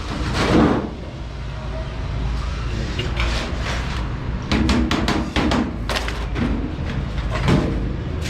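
Irregular knocks and clanks of sheet metal being hammered and handled, several sharp strikes in quick clusters over a steady low hum.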